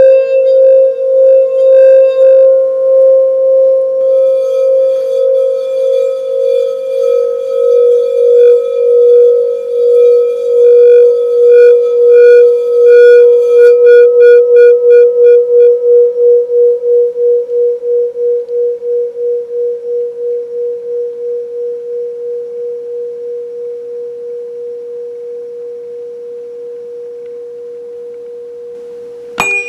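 A frosted quartz crystal singing bowl, the Lepidolite bowl, sounding one sustained tone with higher overtones, its loudness wavering in a steady pulse. About halfway through the overtones drop away and the bowl rings on alone, slowly fading. Right at the end a click sounds.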